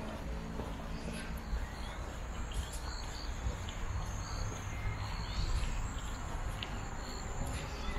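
Insects chirping in a steady, high, even drone over a low outdoor rumble.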